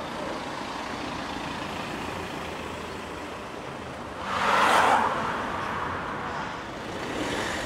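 Street traffic noise with a car passing close by, swelling about four seconds in and fading about a second later.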